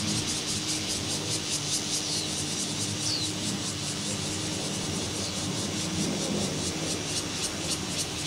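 Small petrol engine of a CY50 walk-behind power tiller running steadily under load while its rotary tines cut a ridge through soil.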